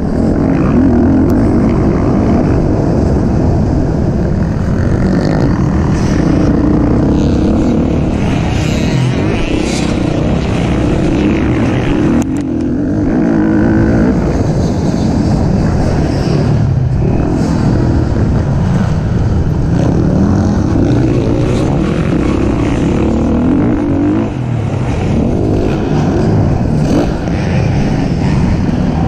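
A racing engine running hard through the race, its pitch rising and falling with the throttle, over a constant low rumble.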